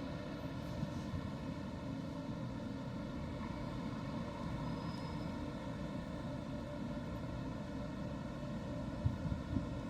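Steady droning noise with a faint even hum, unbroken, with a few soft low thumps near the end.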